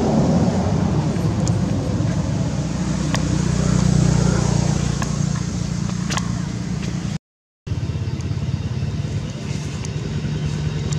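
A steady low motor-like hum with a noisy outdoor haze over it and a few sharp clicks; the sound cuts out completely for about half a second a little past the middle.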